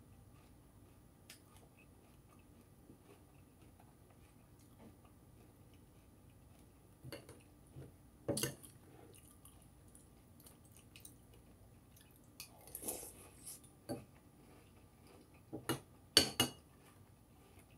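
A spoon clinking against a cereal bowl in short sharp knocks, a few midway and louder ones near the end, with soft chewing of crunchy cereal (Cinnamon Toast Crunch and Raisin Bran) in between.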